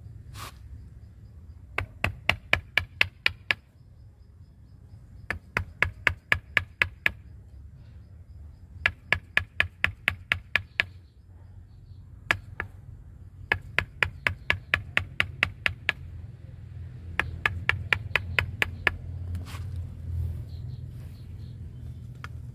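Wooden mallet rapping a wood chisel into the trunk wood of a Wrightia religiosa bonsai. The strikes come in five quick volleys of about eight to twelve blows each, roughly six a second, with short pauses between.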